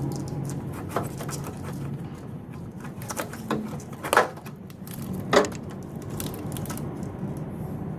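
Scattered clicks and knocks from handling a car's engine control module and its plastic wiring-harness connectors, with two louder sharp knocks about four and five seconds in.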